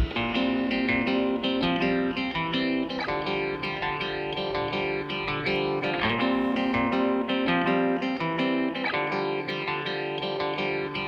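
Background music: guitar playing a steady run of plucked notes.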